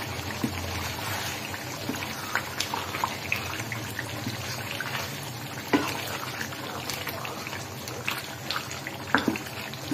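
Wooden spoon stirring a thick, bubbling chicken curry in a nonstick karahi, with a soft wet crackle from the sauce and scattered clicks and scrapes of the spoon on the pan, two of them louder knocks about six and nine seconds in.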